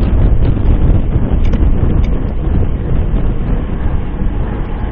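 Wind buffeting the microphone of a Cycliq bike-mounted camera at about 23 mph in the rain, a loud, steady rumble.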